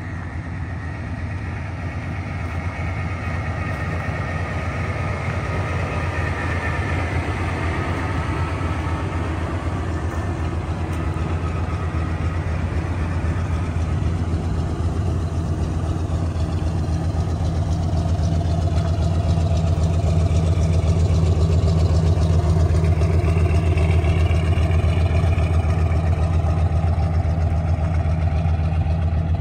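1997 Ford F-250 Heavy Duty pickup's engine idling steadily, a constant low hum that grows louder through the second half.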